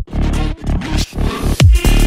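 Background electronic dance music. The beat is broken up early on and the full kick-drum beat comes back in about one and a half seconds in.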